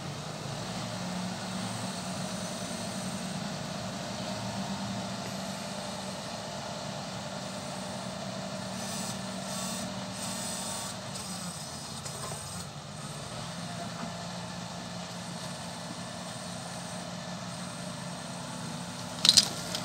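Diesel engines of two large tractors running steadily under load in deep mud, their note shifting slightly about halfway. A few sharp knocks come near the end.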